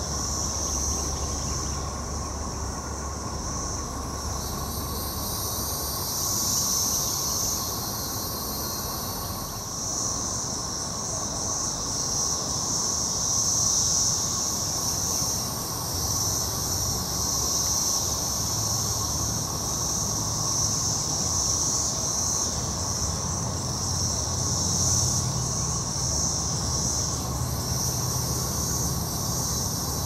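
Chorus of Brood XXIII 13-year periodical cicadas (Magicicada) singing in the trees: a dense, steady high drone that swells and fades every second or two over a lower, steadier hum. A second, higher buzz joins about four seconds in and stops about ten seconds in.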